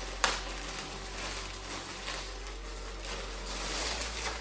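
Plastic packaging rustling and crinkling as a t-shirt is unwrapped, with one sharp click just after the start.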